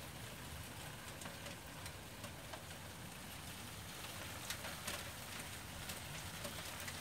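Small hailstones falling on concrete patio paving: a steady, soft patter of many tiny ticks, with now and then a sharper click.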